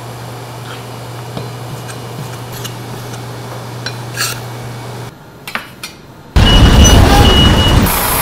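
A steady low hum with a few light clicks and taps as raw meat is pulled apart and trimmed on a wooden chopping block. A little after six seconds it gives way abruptly to much louder outdoor street noise beside parked tour buses, a deep rumble with a thin high steady tone sounding twice.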